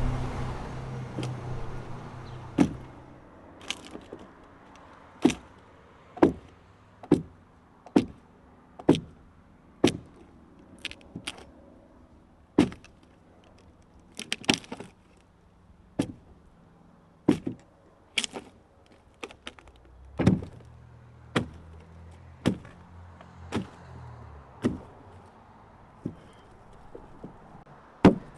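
A hand tool striking the wood of a dugout canoe hull in steady separate blows, about one a second, with a brief quick cluster about halfway. A low hum fades out in the first couple of seconds.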